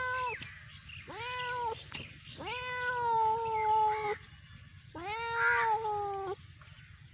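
A cat meowing repeatedly: four meows, a short one at the start and another about a second in, then two long, drawn-out ones.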